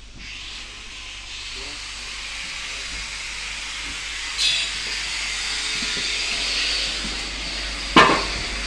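A steady hiss of rushing air that slowly grows louder, with a short high burst about halfway through and a sharp knock near the end.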